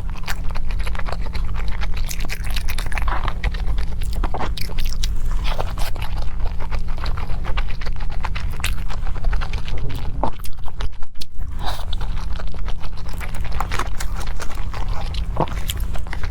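Close-miked eating: a person chewing and biting into food, with many small, irregular crisp clicks, over a steady low hum.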